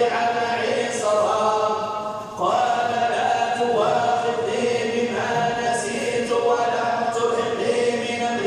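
Quran recitation chanted in long, held melodic phrases, with a brief break about two seconds in before the next phrase begins.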